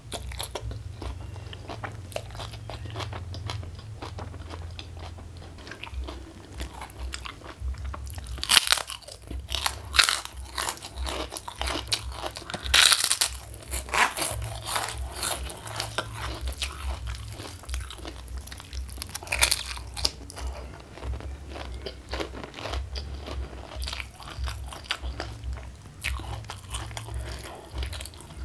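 Close-miked eating: steady wet chewing of a mouthful of rice, chicken and water spinach. It is broken by loud crisp crunches of kerupuk crackers about eight to ten seconds in, again around thirteen seconds, and once near twenty seconds.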